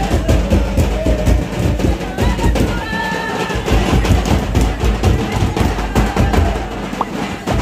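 Live drumming for a Munda village folk dance: dense, rapid drum strokes, with a few voices over it.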